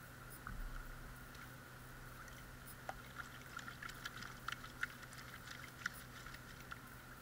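Water sloshing and splashing in a plastic gold pan as it is swirled and dipped in a tub of water, with a run of small splashes and ticks in the middle. A faint steady hum runs underneath.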